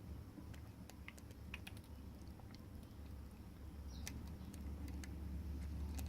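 Faint, irregular small clicks and ticks of a lock pick working the pin stack of a padlock under a tension wrench, with a low hum underneath that grows louder in the last second or so.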